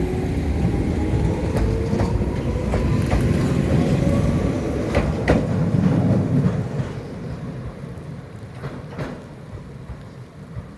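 Toyama Chiho Railway 17480-series electric train pulling away: motor whine rising in pitch over a heavy rumble of wheels on rail, with clacking and a few sharp snaps. The sound fades from about seven seconds in as the train leaves.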